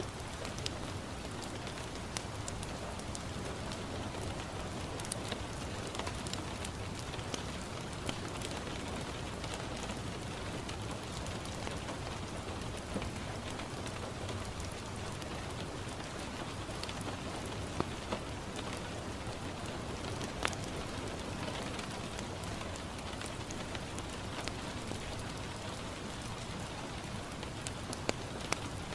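Steady rain falling on a window, with scattered sharp crackles and pops from a wood fire in a fireplace.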